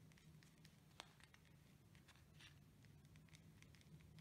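Near silence: faint paper and plastic-sheet rustling and light taps as fingers press an inked plastic sheet onto paper, over a low steady hum.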